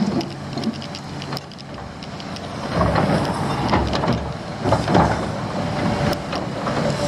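Dump truck driving up, its diesel engine rumbling with clanks and rattles from the truck, growing louder about three seconds in.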